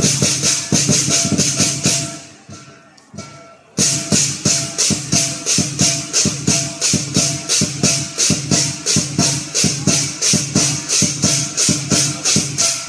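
Lion dance percussion band: drum and clashing cymbals with a ringing gong-like tone, beating a steady rhythm. The playing dies away about two seconds in, then starts again sharply nearly four seconds in at about three strikes a second.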